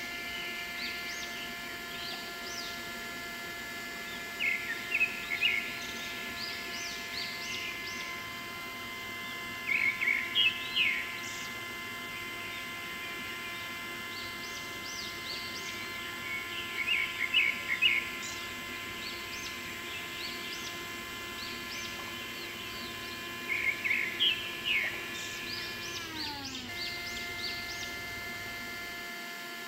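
Small DC electric motor of a miniature tractor running a belt-driven toy grinder, giving a steady whine at one pitch. Clusters of bird chirps come every few seconds and are the loudest sounds. Near the end the whine drops in pitch, then returns.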